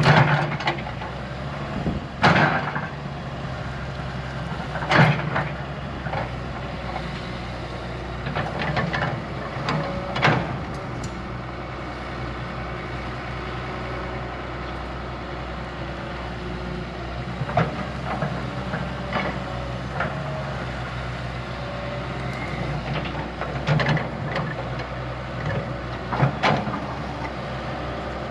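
Diesel engine of heavy earthmoving machinery running steadily, with a sharp knock or clank every few seconds, loudest near the start and at about 2, 5 and 10 seconds in.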